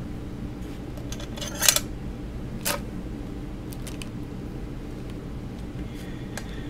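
A few light clicks and a short scrape as small tools and clay are handled on a work table, the loudest scrape about a second and a half in, over a steady low hum.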